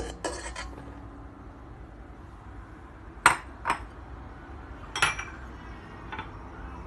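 A cup clinking and knocking against a stainless steel mixing bowl as flour is tipped in: a few separate sharp clinks, two close together about three seconds in and another about five seconds in.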